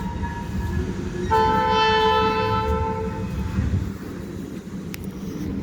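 Norfolk Southern GP switcher locomotive's air horn: the end of one blast, then a second blast of about two seconds that fades out. The horn is fouled and sounds off, like a school bus horn. A low rumble runs underneath.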